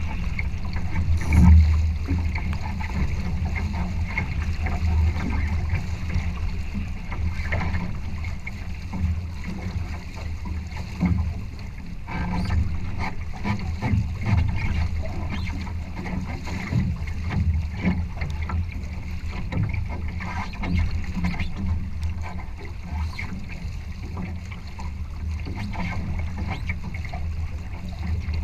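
Wind buffeting the camera microphone and water rushing and slapping along the hull of a Challenger trimaran under sail: a continuous low rumble with a crackle of spray. A louder gust comes about a second and a half in.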